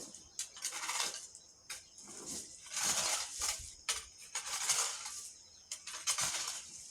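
Repeated scraping strokes on a gritty surface, about one a second, with sharp clicks between them. Crickets chirp steadily.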